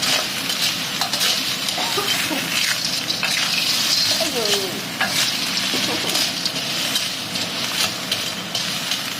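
Food frying in a hot pan: a steady sizzle, broken by irregular clicks and scrapes of stirring. The sizzle jumps up right at the start.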